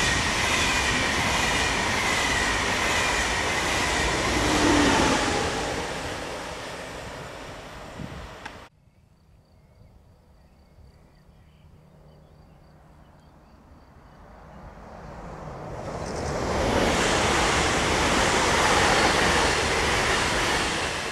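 An ÖBB Railjet express passing at speed, its wheels rumbling on the rails, then fading into the distance until the sound cuts off suddenly about nine seconds in. After a quiet stretch, an ÖBB Cityjet electric multiple unit approaches, its rolling noise swelling to a loud rush as it passes at speed.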